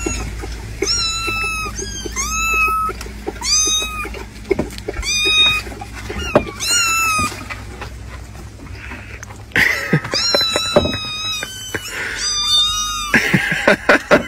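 Young kittens mewing: a string of short, high-pitched mews about once a second, a pause of a couple of seconds past the middle, then a few more mews, with light clicking taps in between.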